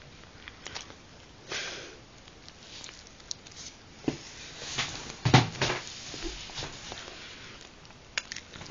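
Scattered close-up handling noises, short clicks and rustles, with one louder bump a little after five seconds in.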